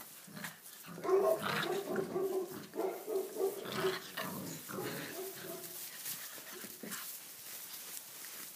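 Six-week-old Tibetan mastiff puppies growling and yapping as they play-fight, the calls loudest from about a second in until about five seconds in, with light scuffling clicks.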